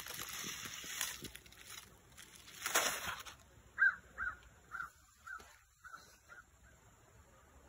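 A bird calls about seven times in quick succession, short calls roughly half a second apart, starting a little before halfway through. Before the calls there is a rush of noise lasting about three seconds.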